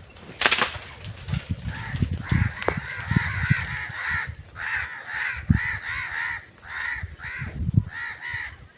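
A crow cawing over and over, about two to three calls a second from about two seconds in. Scattered low thumps and a sharp noisy burst near the start come with it.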